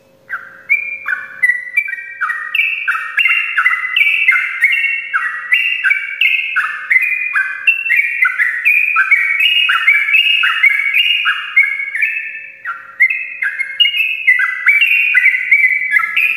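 Yellow-vented bulbul (trucukan) singing a long unbroken rolling song (ropelan): a fast chatter of whistled notes, most of them dropping in pitch, two or three a second, with a brief lull about three quarters of the way through.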